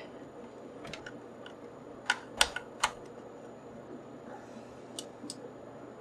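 Small sharp clicks and taps of a screwdriver and screws on the metal bracket of a DVD-ROM drive as it is screwed back on: a few faint ticks, three sharper clicks between about two and three seconds in, then two faint ones near the end.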